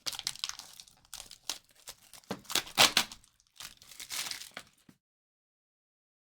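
Plastic wrap and packaging crinkling and tearing, with small clicks of cardboard being handled, as a sealed trading-card box is opened. The sound cuts off abruptly about five seconds in.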